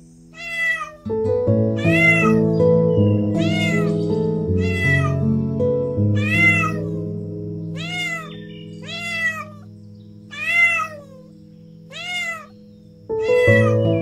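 Domestic cat meowing over and over, about one meow every second and a half, each call rising and then falling in pitch. Background music comes in about a second in.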